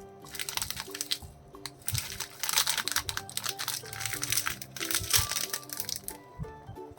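Plastic biscuit wrapper crinkling and rustling as a packet is handled and torn open, in irregular bursts until about six seconds in, over background music.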